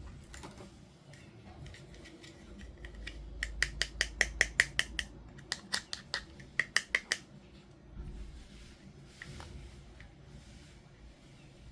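Sharp plastic clicks and snips from toy packaging being handled during unboxing. They come in two quick runs of about five a second, the first starting about three and a half seconds in.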